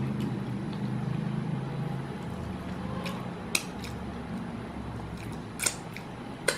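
A person chewing and eating fried chicken, with a few short sharp mouth clicks, over a steady low hum.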